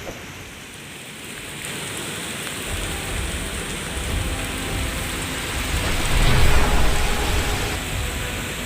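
Heavy rain falling steadily, with a deep low rumble coming in a few seconds in and swelling to its loudest about two-thirds of the way through.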